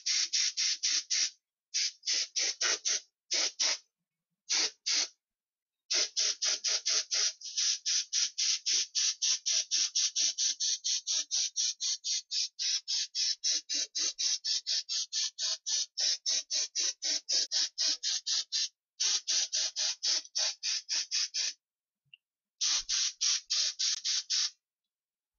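Games Workshop spray gun spraying black surface primer in several trigger bursts, with gaps between them. The hiss comes in rapid pulses of about five a second, and the longest burst runs about thirteen seconds.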